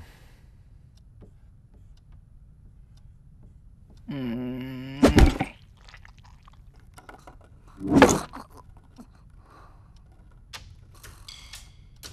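Quiet classroom room tone broken by cartoon sound effects. About four seconds in there is a short steady drone that ends in a sharp knock. About eight seconds in comes a louder noisy thud, then a few faint clicks.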